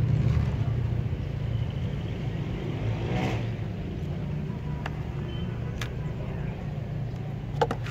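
Steady low rumble of a motor running nearby, easing slightly after the first second. A cut-down plastic bottle used as a soil scoop makes a few sharp clicks and scrapes against potting soil and the bucket rim, the loudest near the end.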